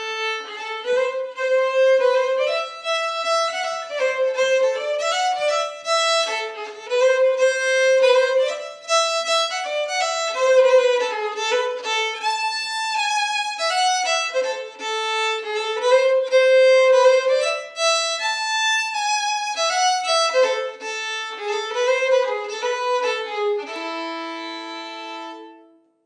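Solo violin playing a melody of quickly changing notes, settling near the end on a held low note that then stops.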